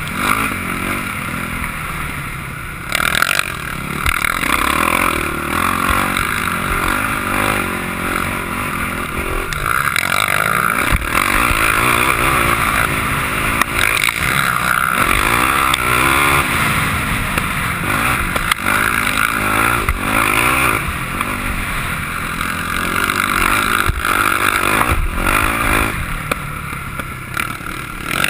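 Sport quad (ATV) engine heard on board at speed, its pitch rising and falling over and over as the throttle opens and closes, over a constant rushing noise and occasional knocks from the rough dirt track.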